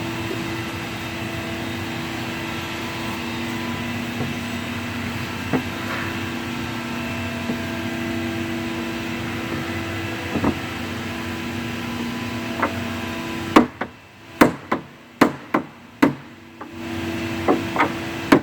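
A steady background hum with a few light knocks, then near the end a quick run of sharp hammer taps on wood, about a dozen in all. The taps come from knocking table panels into place against a wooden block to seat them flush.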